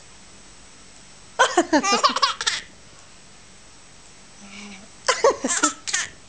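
Baby laughing in two bursts of quick, breathy laughs, one about a second and a half in and another about five seconds in.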